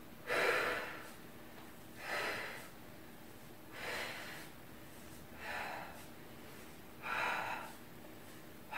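A woman's breathing: five short, hard exhales, about one every second and a half, each timed to a switch of the legs during a Pilates single leg stretch.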